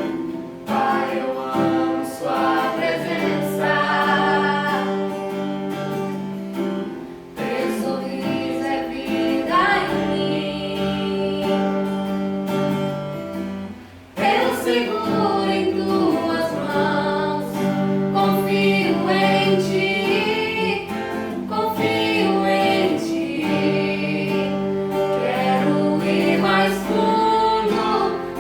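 A woman singing a worship song to acoustic guitar accompaniment, with a brief pause between phrases about halfway through.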